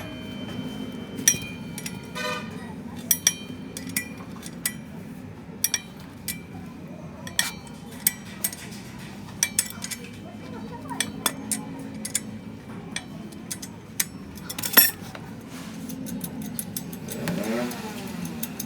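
Irregular metal clinks and knocks of tools and engine parts being handled during an engine rebuild, over a steady low hum, with one louder knock about fifteen seconds in.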